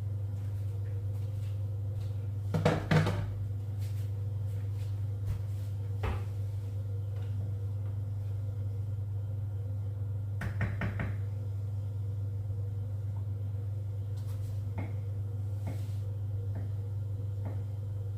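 Kitchen clatter of pots and utensils being handled during cooking: a cluster of clanks about three seconds in, a knock near six seconds and another pair around ten to eleven seconds, with lighter taps later, over a steady low hum.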